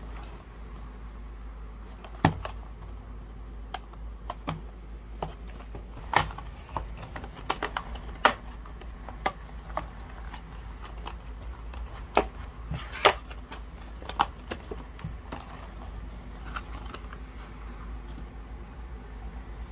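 A cardboard trading-card booster box handled and opened by hand: scattered clicks and taps of fingers and cardboard flaps, a few of them louder snaps, over a low steady hum.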